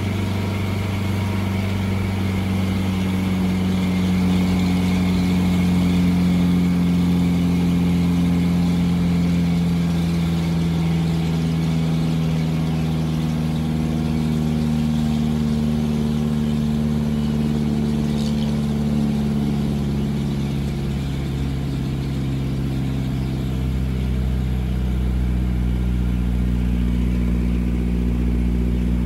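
Mitsubishi Canter 4x4 dump truck's diesel engine running steadily as the loaded truck drives, heard from inside the cab. The engine note drifts slowly lower for about twenty seconds, then shifts and deepens near the end.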